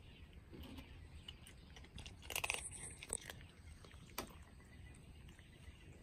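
Cat crunching dry kibble: faint crisp crunches, with a louder run of them about two seconds in.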